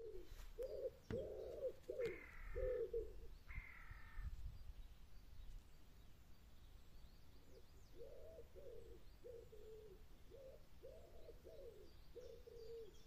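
A pigeon cooing in repeated low phrases, with a pause in the middle, and two harsh crow caws about two and three and a half seconds in.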